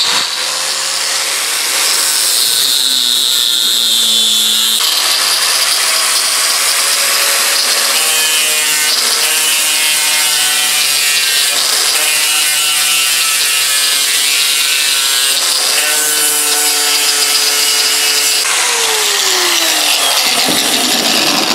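Bosch angle grinder with a 60-grit disc running under load, grinding rust pits out of the steel of an old Plumb axe head: a steady, loud grinding noise with a high whine. The motor's pitch falls near the end.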